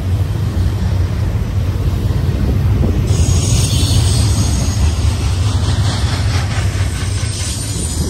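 Double-stack intermodal well cars of a freight train rolling past: a steady low rumble of steel wheels on rail. A higher hiss joins about three seconds in, and a few wheel clicks come near the end.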